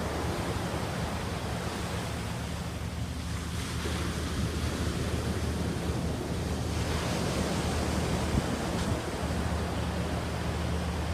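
Ocean surf washing in: a steady hiss of waves that swells twice, about three and a half and about six and a half seconds in. Wind rumbles on the microphone underneath.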